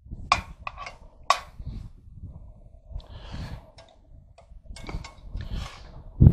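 A metal spatula scraping and clicking against a frying pan, several sharp strokes, as ground beef is broken up and browned, with low wind rumble on the microphone.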